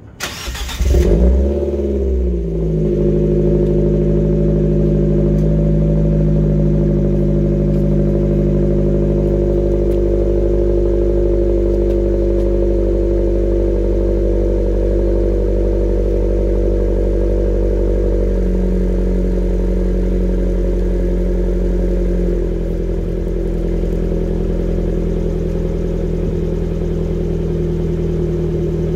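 2018 Fiat 124 Abarth's turbocharged 1.4-litre four-cylinder starting up through a stock 1.7-inch crosspipe and a straight-through 2.5-inch System One exhaust. A short burst of cranking is followed by the engine catching with a rising flare, then it settles into a steady fast idle. The idle steps down about two-thirds of the way in and again shortly after, as a cold-started engine does while warming.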